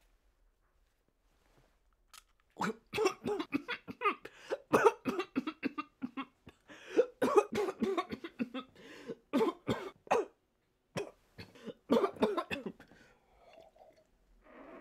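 A person coughing in a long, hard fit of short, sharp coughs, starting about two and a half seconds in and dying away near the end.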